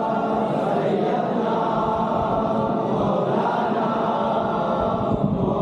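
A group of voices chanting together in one continuous, unbroken chant.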